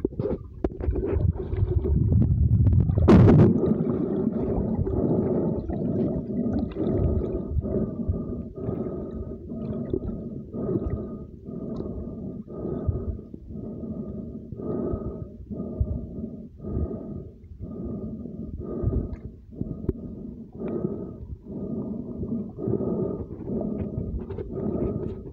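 Muffled underwater sound picked up by a submerged phone: a low rumble that ends in a sharp knock about three seconds in, then a steady pulsing about once a second.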